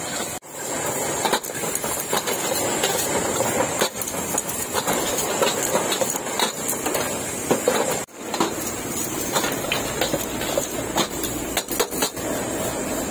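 Busy street-food stall clatter: repeated knocks and clinks of cooking utensils and dishes over steady traffic and market noise, broken by two short gaps about half a second in and about eight seconds in.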